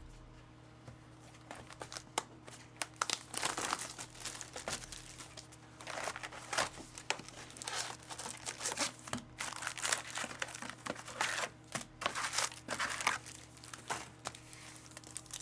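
Plastic packaging crinkling and tearing in irregular bursts as a hobby box of trading cards and its packs are opened by hand.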